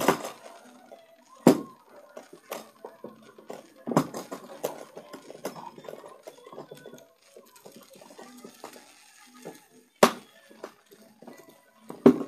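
A series of sharp knocks and clinks: strong ones at the start, about a second and a half in, around four seconds, around ten seconds and near the end, with smaller taps and a faint murmur between.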